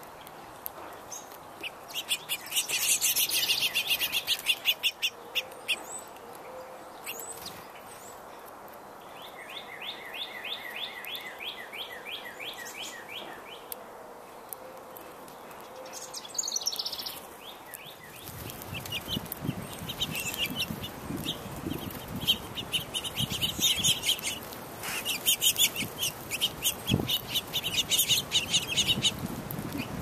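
Songbirds singing: bouts of rapid high trills and repeated chirps, one long even trill about a third of the way in. A low rumble runs underneath in the second half.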